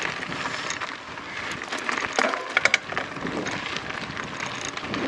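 YT Izzo mountain bike rolling over a rocky dirt trail: steady tyre and trail noise with scattered clicks and rattles from the bike, and two sharp clacks about two and a half seconds in. Wind buffets the microphone.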